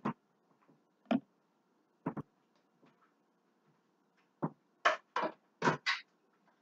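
Kitchen clatter from someone working at the stove and counters: a series of short knocks and clanks, with a quick run of several near the end.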